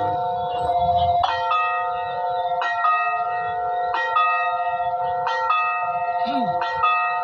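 Railway level-crossing warning bell ringing: a chime struck about every 1.3 seconds, its tones ringing on between strikes. It warns that a train is approaching.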